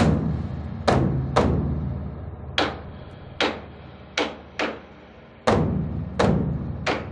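Large Korean Buddhist temple drum (beopgo) struck by hand at an uneven, slow pace, about ten strokes. Each stroke leaves a deep, long-ringing boom. Some strokes are heavy and some light.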